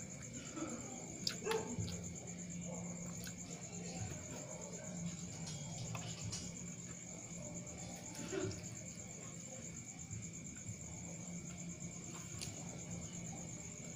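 A steady, high-pitched, pulsing insect trill with a low steady hum beneath it. There are a few clicks and small eating sounds from food being picked up by hand off a plate and chewed, the loudest about a second and a half in and again about eight seconds in.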